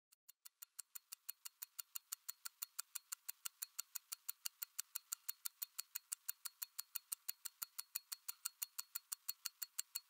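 Mechanical watch ticking steadily, about six sharp ticks a second, fading in over the first second.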